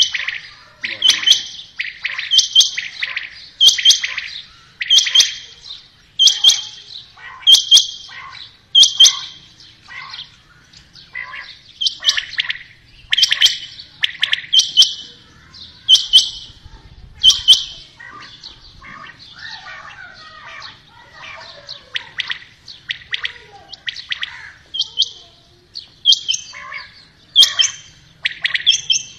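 Caged quails calling: short, sharp, high calls repeated about once every second and a half, with softer, varied chirping between runs of calls.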